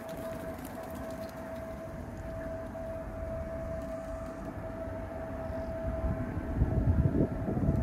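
Wind rumbling on the microphone, growing stronger near the end, under a steady faint high hum.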